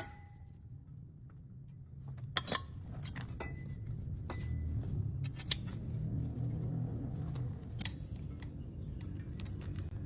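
A few sharp metallic clinks, as of metal pieces knocking together, spaced a second or more apart over a low steady hum.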